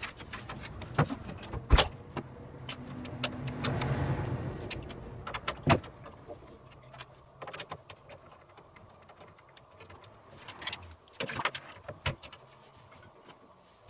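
Scattered clicks, taps and knocks of hard plastic and metal PC parts and cables being handled and fitted into a computer case, with a longer scraping rustle about three to five seconds in.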